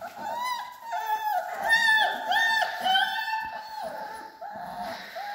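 Three-week-old Alaskan malamute puppies whining, several at once: a steady run of short, high, overlapping whines, about two a second.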